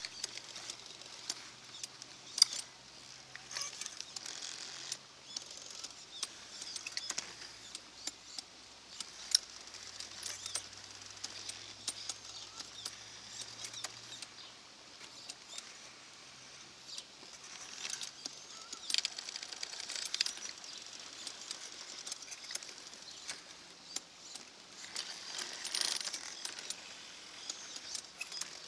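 Radio-controlled model Liebherr 984 excavator ripping ground: irregular scraping and clicking of the bucket or ripper tooth working the ground, with a faint steady low hum through roughly the first half.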